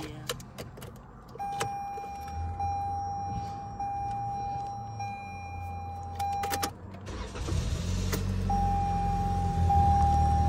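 Toyota Camry's dashboard warning chime sounding as a steady tone repeating about every 1.2 seconds, with switch clicks. About seven seconds in, the engine starts and settles into a steady idle while the chime carries on.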